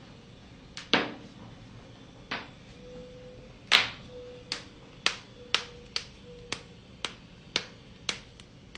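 Joints cracking: about a dozen sharp pops, a few spaced unevenly at first with the loudest about four seconds in, then a steady run of pops roughly every half second.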